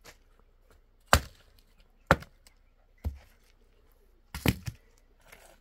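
Four sharp knocks about a second apart, the last a quick double blow.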